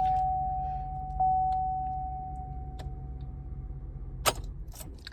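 Chevrolet Silverado dashboard warning chime sounding twice and fading over a low steady hum in the cab. About four seconds in, a sharp click cuts the hum off, followed by a few faint clicks.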